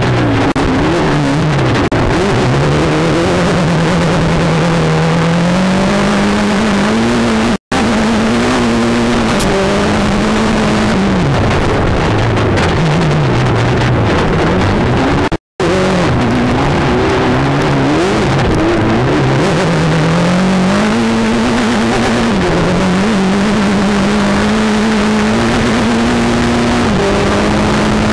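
Mitsubishi Evo turbocharged four-cylinder engine of an off-road race sedan heard from inside the car, revving up and dropping back again and again as it accelerates and shifts through its six-speed sequential gearbox, over loud rumble and rattle. The sound cuts out for an instant twice.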